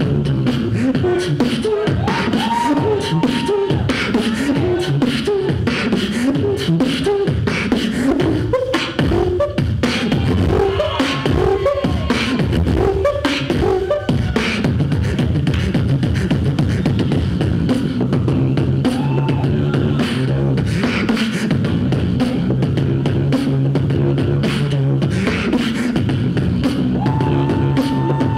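Solo beatboxing into a handheld microphone over a PA: fast vocal kick, snare and hi-hat sounds mixed with sung pitched lines and a few short high held notes. From about halfway a steady low bass tone runs under the rhythm.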